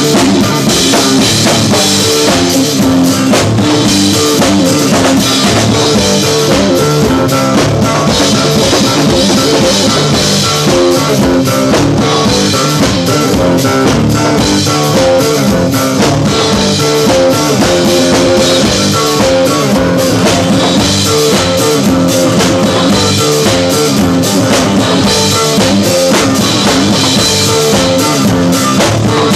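Live rock band playing loudly and continuously: a drum kit with frequent cymbal hits, and guitar.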